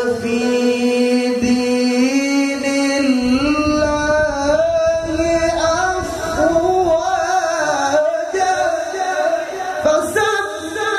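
A man reciting the Qur'an in the melodic tilawah style into a microphone, holding long notes that waver and turn in ornaments. A new phrase begins about ten seconds in.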